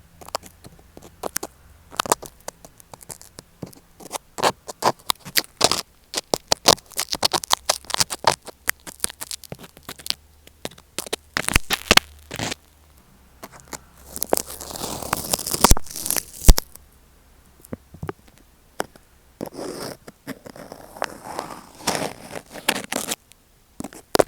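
Tape-covered Apple EarPods microphone being poked and rubbed directly, heard as dense crackling scratches and sharp clicks, with a longer continuous rub a little past halfway and another near the end.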